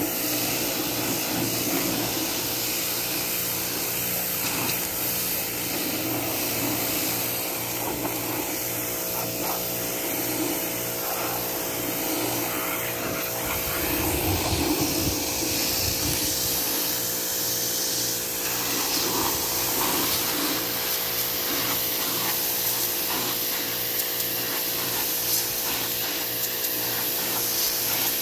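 Pressure washer running steadily: its motor hums under the hiss of the high-pressure water jet striking a boat's swim platform.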